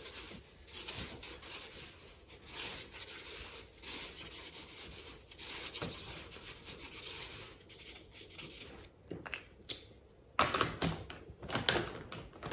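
Felt-tip marker scratching across sketchbook paper in quick, repeated strokes. Near the end come a few louder knocks as markers are handled in their holder.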